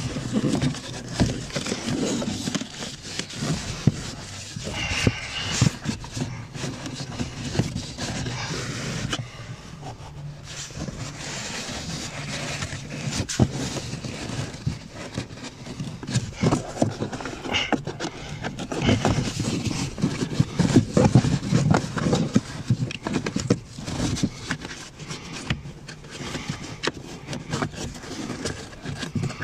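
A pleated cabin air filter being pushed and worked into its plastic housing on a Mini Cooper R56: irregular scraping and rustling of the paper pleats and plastic against the housing, with scattered clicks and knocks.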